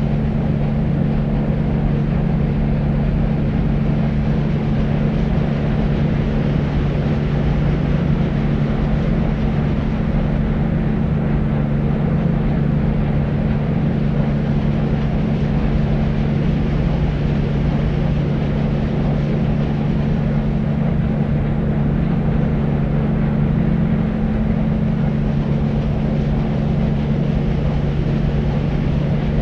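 Deep white noise: a steady, unchanging hiss weighted toward the low end, with a constant low hum beneath it.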